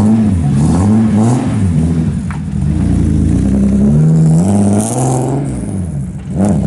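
Rally-prepared BMW E36 Compact's engine being blipped and revved repeatedly as the car pulls away slowly, its pitch rising and falling about once a second. The revs hold higher for a moment past the middle, drop briefly near the end, then climb again.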